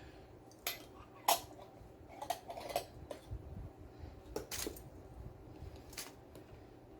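A utensil clinking and tapping against dishes while salsa is served onto a salad: a handful of separate light knocks spread over several seconds.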